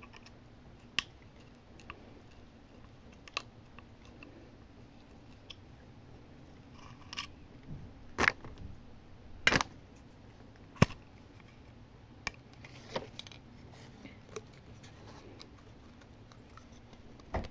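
Scattered clicks and knocks from a wooden AK-47 buttstock being handled and worked at to free a rag stuffed inside it, with three louder knocks in the middle.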